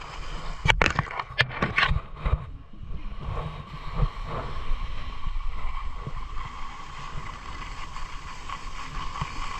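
Skis sliding over firm groomed snow, with a steady low rumble of wind on the microphone at skiing speed. A handful of sharp clacks and knocks in the first two seconds or so as the run gets under way.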